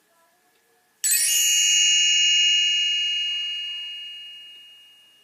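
A single bright chime struck about a second in, ringing on and slowly fading away over about four seconds: the read-along's turn-the-page signal.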